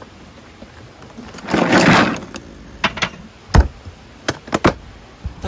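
Pelican 30-quart hard cooler being opened and shut: its latches clacking, a loud scraping rustle about two seconds in, then a run of sharp knocks with one heavy thump of the lid a little after three and a half seconds.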